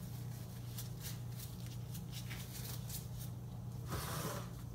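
Disposable gloves crinkling and snapping faintly as they are pulled onto the hands, over a steady low hum. A louder brief rustle about four seconds in.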